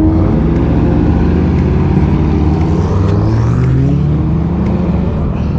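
Motor vehicle engines running as traffic passes, one engine rising in pitch about three to four seconds in.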